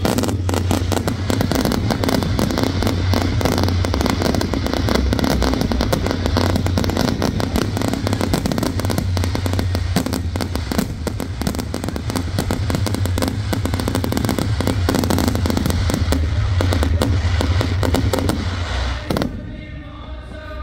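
A dense barrage of fireworks: rapid overlapping bangs and crackling over a continuous low rumble. It dies away about a second before the end.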